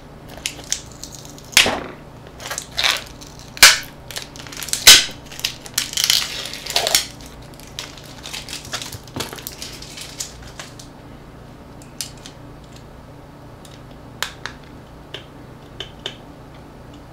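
Crackling and clicking of a smartphone's plastic parts being handled and pried apart by hand: a busy run of loud crinkly crackles in the first half, then only a few light, scattered clicks.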